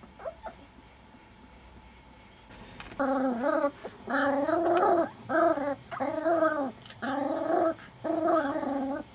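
A four-week-old Caucasian shepherd puppy crying out while being held, in six short yowls that rise and fall in pitch, starting about three seconds in.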